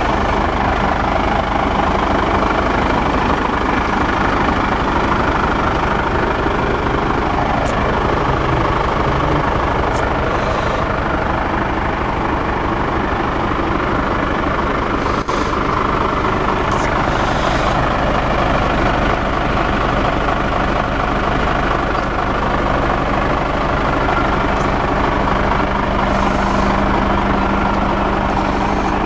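Nissan Diesel heavy truck tractor unit's diesel engine idling steadily, with a constant low hum.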